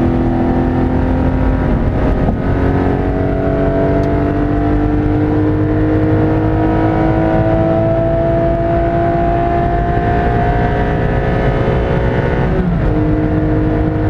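Porsche Cayman engine heard from inside the cabin, accelerating hard, its pitch climbing slowly through one long pull in a high gear. It drops suddenly with an upshift near the end, over a steady rumble of road noise.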